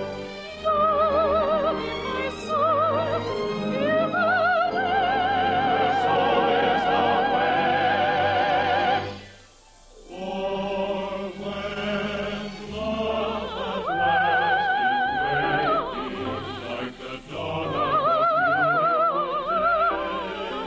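Operetta song: a high operatic voice singing long held notes with wide vibrato over an orchestra, with a brief break between phrases about nine and a half seconds in.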